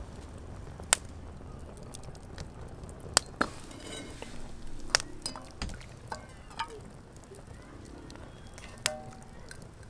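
Cooking utensils clinking against pans and dishes: about nine sharp, separate clinks spread out irregularly, a few of them ringing briefly.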